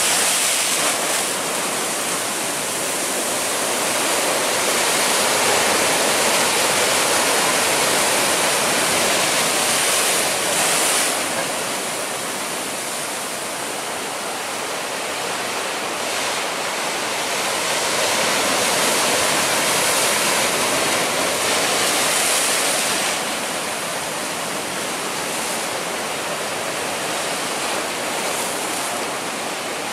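Heavy ocean surf breaking on rocks: a continuous rush of white water that swells louder and eases off as the waves come in.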